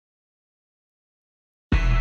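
Dead silence, then about two-thirds of the way through a loud burst of electronic hip-hop music with heavy deep bass cuts in suddenly.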